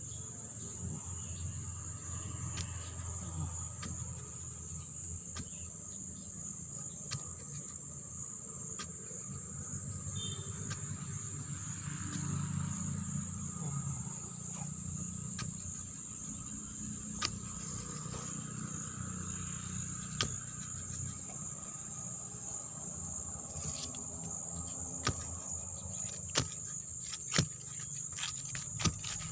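Steady high-pitched chorus of insects, crickets chirring in the field, over a low rumble, with a few sharp clicks near the end.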